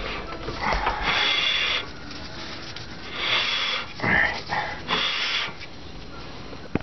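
Ratchet wrench run in three short bursts as the brake caliper mounting bolts are tightened down, with a single sharp click near the end.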